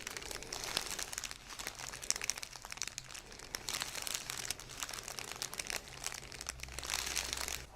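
Continuous crinkling and rustling with many small crackles, from the patient's body shifting on the chiropractic treatment table.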